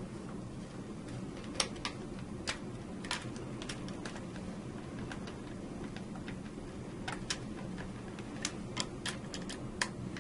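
Scattered small sharp clicks of a screwdriver turning screws into the circuit breaker's metal secondary mounting bracket, in two bunches, over a steady low hum.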